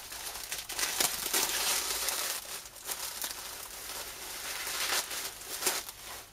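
Bubble wrap and a plastic bag crinkling and rustling in irregular bursts as they are pulled off a wrapped part by hand.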